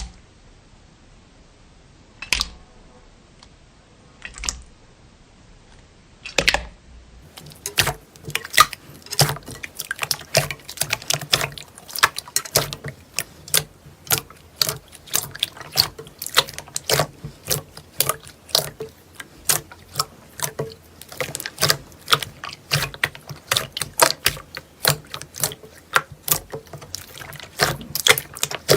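Slime worked by hand, making wet pops and clicks: a few separate pops in the first seconds, then from about seven seconds in a dense run of crackly, squelchy clicks, several a second.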